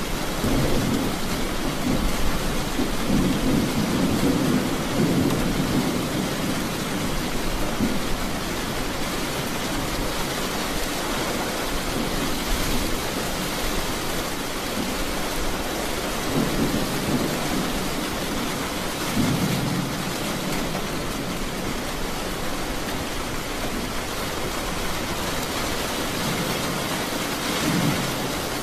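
Heavy rain falling steadily, with low rolling thunder that swells up several times: a long rumble in the first few seconds, two more around the middle, and a short one near the end.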